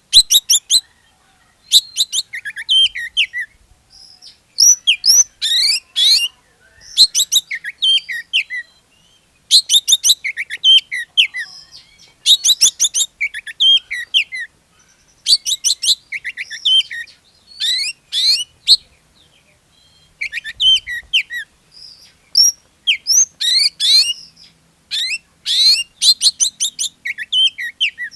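Oriental magpie-robin (kacer) singing in full, vigorous song: phrase after phrase of quick, sweeping whistled notes, each phrase lasting one to two seconds with short pauses between.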